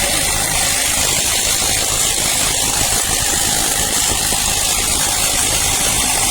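AOBEN 21V cordless impact wrench hammering continuously on a wheel's lug nut, a loud, dense rattle held for about six seconds that stops abruptly; the nut is not breaking loose.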